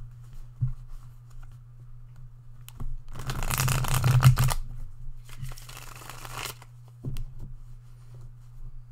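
A deck of tarot cards being riffle-shuffled by hand: two rattling shuffles of about a second and a half each, with a few light taps of the deck being handled before and after.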